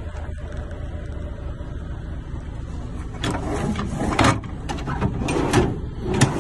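Under-bunk storage drawer of a Volvo FH truck cab pulled out by hand: a few bursts of plastic and metal sliding and scraping, starting about three seconds in. Underneath runs a steady low engine hum.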